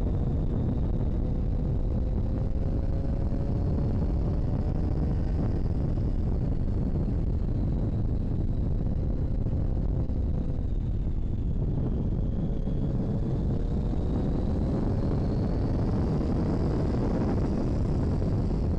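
Motorcycle engine running under way on a winding road, its pitch rising, dipping about halfway through, and climbing again as the rider works through the bends, under heavy wind rush on the microphone.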